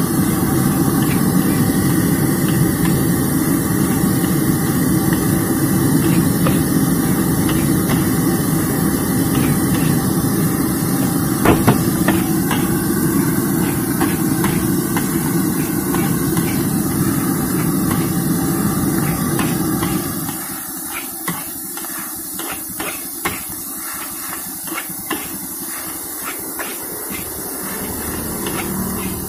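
A metal spatula scraping and clanking against a large steel wok as fried rice is tossed and stir-fried, with frequent sharp knocks. Under it runs a steady low rushing noise that drops away about twenty seconds in, after which the spatula knocks stand out.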